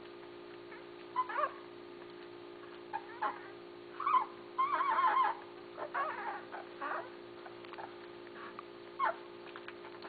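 Basset hound puppies whimpering and squeaking in short, high, wavering calls, with one longer warbling whine about five seconds in. A steady low hum runs underneath.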